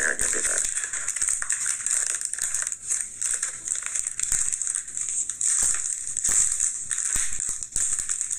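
Wrapper of a Mr Beast milk chocolate bar crinkling and crackling as it is pulled open by hand: a run of quick, irregular crackles over a steady high hiss.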